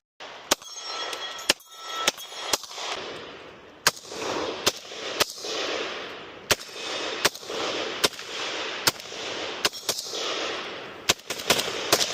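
A 9mm firearm fired semi-automatically in a steady string of about fifteen shots, roughly one every two-thirds of a second, each followed by a long rolling echo. The shots come faster in a quick cluster near the end.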